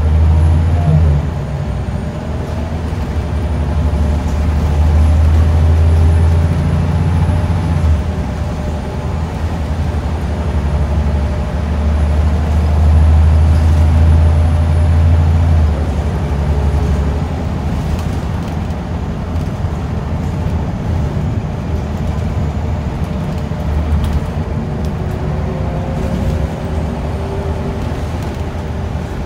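Cabin sound of a moving Scania L94UB single-deck bus: the rear diesel engine drones low over steady road noise. Twice in the first half it pulls harder for several seconds and then drops back suddenly, then it runs on more evenly. A faint high whine runs through the first half.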